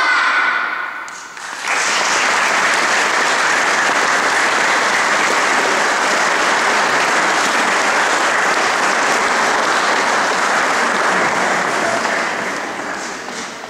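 Audience applauding, starting about two seconds in, holding steady, and dying away near the end.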